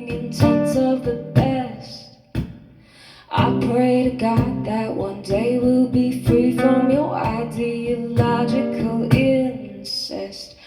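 A solo acoustic guitar being strummed, accompanying a woman's singing voice. The music drops away almost to nothing about two seconds in and comes back a second later.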